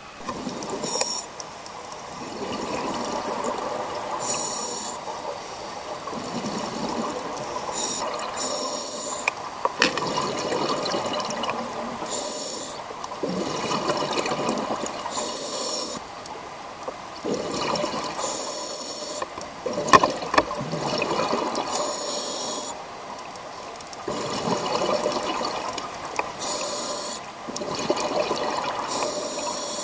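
Scuba diver breathing through a regulator underwater: a short hiss on each inhalation, about every three to four seconds, each followed by the rushing bubble noise of the exhaled air. A single sharp click about two-thirds of the way through.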